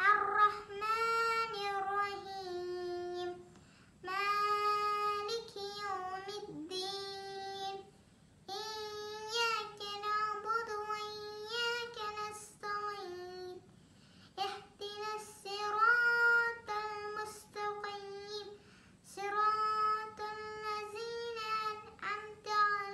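A young girl chanting Quranic recitation in Arabic, in long melodic phrases with short pauses between them.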